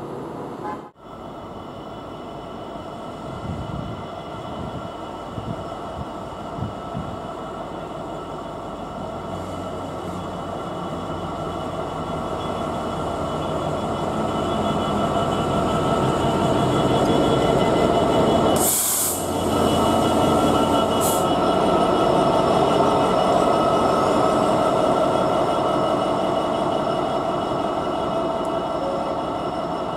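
GB Railfreight Class 66 diesel-electric locomotive running light past at low speed. Its two-stroke V12 engine and wheels grow louder as it draws level, then fade as it moves away, with a short hiss about two-thirds of the way through.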